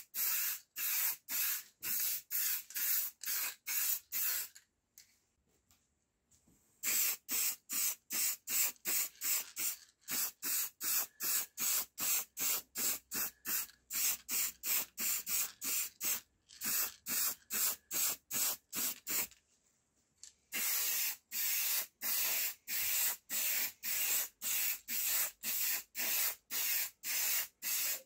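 Spray paint hissing in short, rapid bursts, about two to three a second, as metal speaker grilles and driver parts are coated, with a couple of brief pauses.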